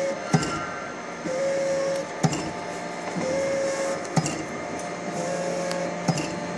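Savema SVM 53i coding printer with a friction feeder and conveyor belt running a production cycle: a short steady whine, then a sharp click, repeating about every two seconds as each film wrapper is fed and date-coded. A constant mechanical hum runs underneath.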